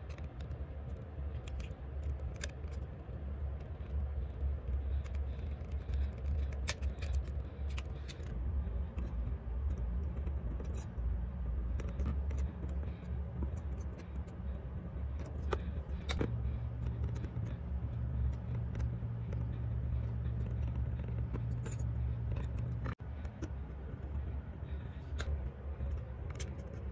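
Light clicks, taps and scrapes of small tools and parts being handled on a circuit board during soldering, over a steady low hum. A second, slightly higher hum joins about two thirds of the way in and stops suddenly a few seconds later.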